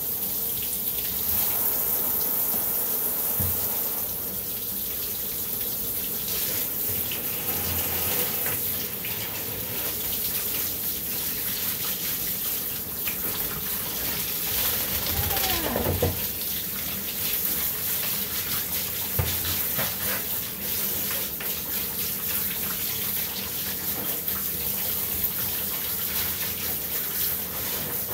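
Handheld shower sprayer running steadily, water spraying onto a small dog's coat and splashing into the bathtub. A brief falling tone sounds about halfway through.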